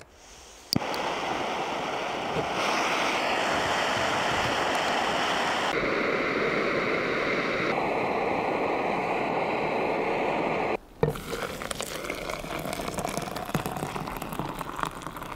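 Canister backpacking stove lit under a pot, its burner running with a steady loud hiss that shifts in tone a few times. About eleven seconds in the hiss stops and water is poured from the pot into a glass French press, splashing and gurgling.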